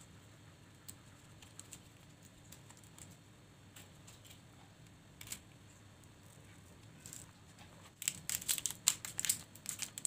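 Banana leaf crinkling and rustling in the hands as it is folded around a filled parcel and pinned with a thin stick. There are faint scattered rustles at first, then a run of crisp crackles over the last two seconds.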